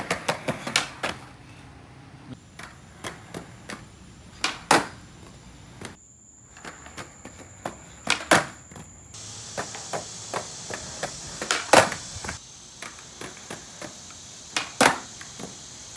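Skateboard ollies on concrete patio pavers: sharp clacks of the tail popping and the wheels landing, with the rumble of the wheels rolling between them. The clacks come irregularly throughout, the loudest about three quarters of the way through.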